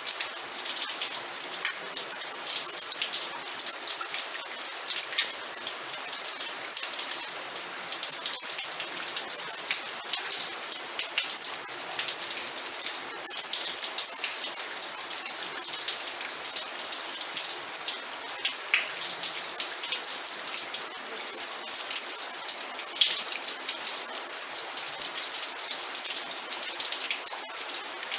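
Steady rain falling on a surface, a dense even hiss made of countless fine drop ticks, mostly high in pitch.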